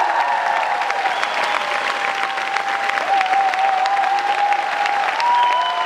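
Audience applauding at the end of a tango performance, dense steady clapping with drawn-out cheering calls over it.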